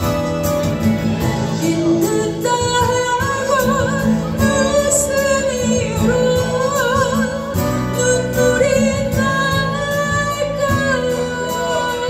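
A woman singing a slow Korean ballad with a wavering vibrato, accompanying herself on strummed acoustic guitar.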